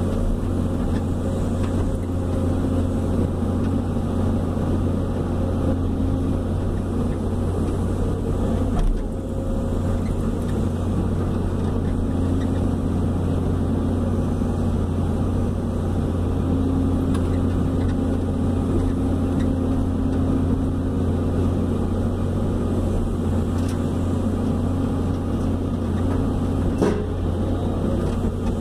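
Hydraulic excavator's diesel engine and hydraulics running steadily, heard from inside the operator's cab while it digs and swings to load a dump truck, with a higher hum that comes and goes. A short knock about nine seconds in and a sharper one near the end.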